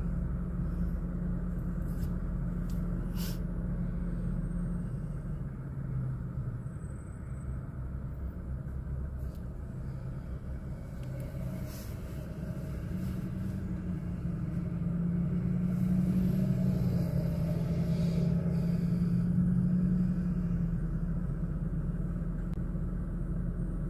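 Low, steady vehicle rumble heard from inside a stopped car with its engine idling, with traffic passing through the intersection. It swells louder for several seconds about two-thirds of the way through as a vehicle goes by.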